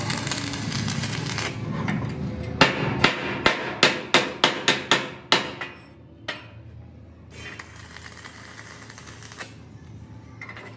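Hammer striking metal: about a dozen sharp blows in quick succession, a few a second, starting about two and a half seconds in and stopping around six seconds. A steady workshop noise runs before the blows, and a quieter hum follows them.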